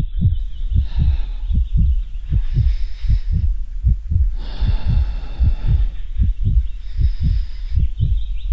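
A fast, regular low thumping, about three to four beats a second, with bursts of hiss every second or two.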